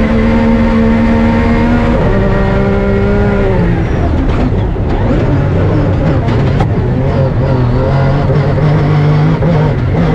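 Rally car engine running hard: the pitch holds, steps down about two seconds in and drops further a little later, then climbs slowly through the second half as the car accelerates again. Scattered clicks and knocks come through in the middle.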